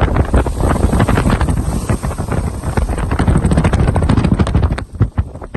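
Strong wind buffeting a microphone: a loud, gusty, rumbling noise with crackling, which dips briefly near the end.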